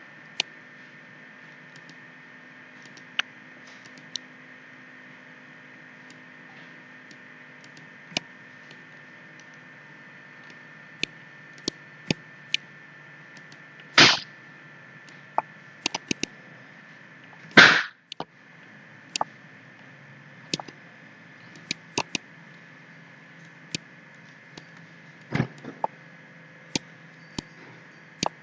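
Computer mouse clicks, scattered and irregular, over a steady hum, with two louder knocks about halfway through.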